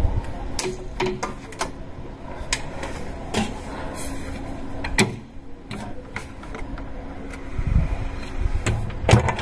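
Scattered clicks and knocks of things being handled over a faint steady hum, with a louder low rumble and knocks near the end.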